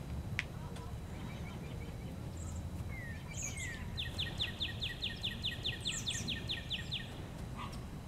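Songbird singing a run of about fifteen quick falling notes, some five a second, lasting about three seconds from about halfway in, with a few short higher chirps before and during it.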